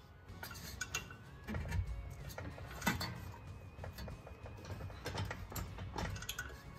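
Hand ratchet clicking in short runs, with metal clinks and a few knocks, as a bolt is run in on a car's rear strut mount; music plays underneath.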